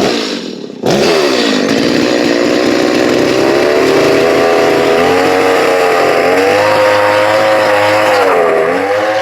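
Chainsaw starting up about a second in and running under load, with its pitch wavering and dipping as it cuts through wood; it cuts off near the end.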